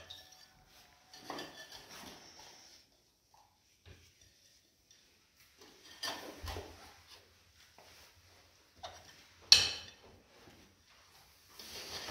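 Ceramic wall tiles clinking, tapping and scraping as they are handled and pressed into tile adhesive, in scattered short bouts, with one sharp click about nine and a half seconds in, the loudest sound.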